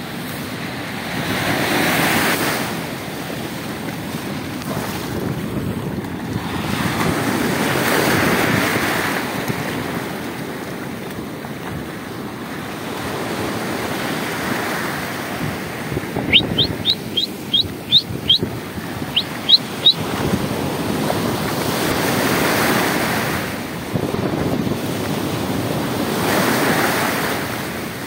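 Surf washing onto a sandy beach, swelling and fading in waves every few seconds, with wind on the microphone. About two-thirds of the way through comes a quick run of about ten short, high chirps.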